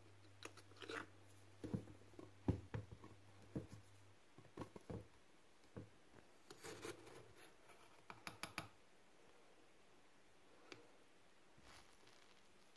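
Faint kitchen handling sounds: scattered soft clicks, taps and scrapes as a small glass bottle's metal screw cap is twisted and a steel pot is handled on a countertop. A low hum underneath stops about four seconds in.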